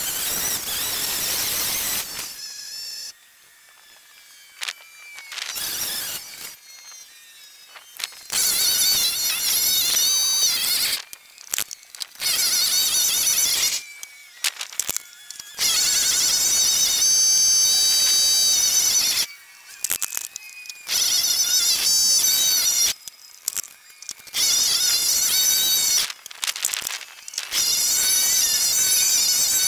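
Lawn mower running, sped up by the timelapse into a high, wavering whine that cuts in and out abruptly several times.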